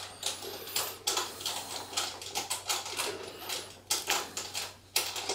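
Scattered small clicks, taps and rustles of a hand groping inside the robot's hollow body shell, working a quarter-inch wing nut and long bolt free.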